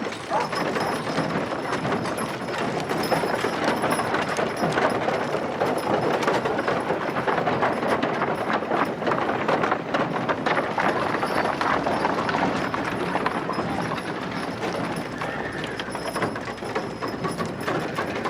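A steady, busy clatter of many small knocks and taps running on without pause.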